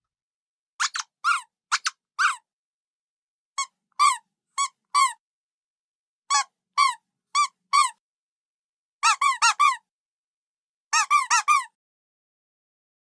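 Squeaky dog toy squeezed repeatedly, giving short high squeaks that rise and fall in pitch. They come in clusters of four or five separated by short silences, and the last two clusters are quicker.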